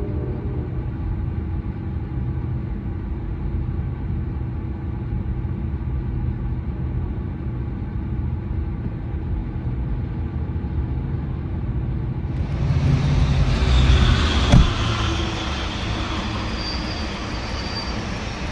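Sounder commuter train of bi-level coaches passing on the tracks, a steady rolling rumble. About twelve seconds in, the sound cuts to a closer pass that swells louder, with one sharp knock soon after.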